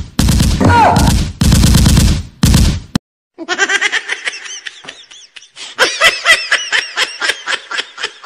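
Three bursts of recorded automatic gunfire, a fake machine-gun sound effect, each about a second long. It cuts off abruptly about three seconds in and is followed by rhythmic pulses of laughter.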